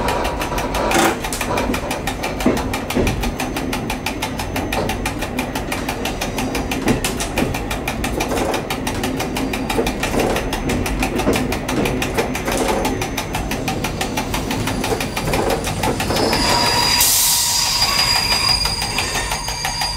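Diesel railcar running at low speed, heard from inside the driver's cab: a steady, evenly ticking engine and wheel noise. Near the end, a sharp hiss gives way to a high, steady squeal lasting about two seconds.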